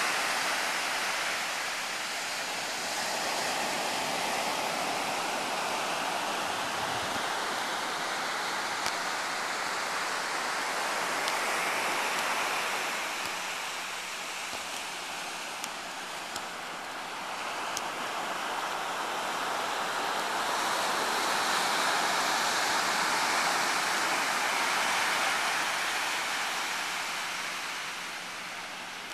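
Ocean surf breaking and washing up on a sandy beach: a steady rush that swells and fades every several seconds.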